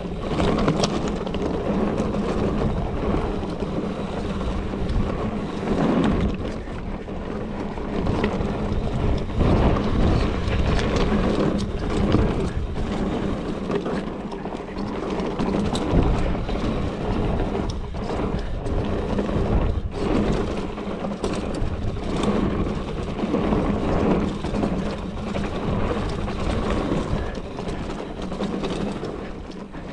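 Mountain bike riding down a dirt and gravel trail: steady rolling noise from the tyres, with frequent rattles and knocks from the bike as it goes over bumps.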